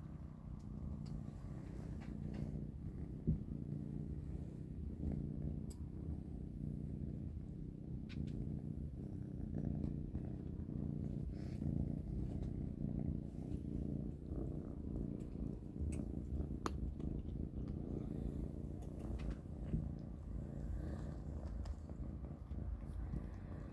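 A kitten purring steadily, a low pulsing rumble, with a few faint sharp clicks scattered through it.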